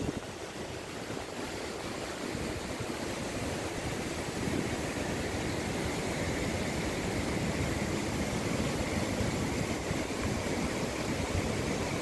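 Wind blowing across the microphone: a steady rushing noise with an uneven low rumble, a little louder from about four seconds in.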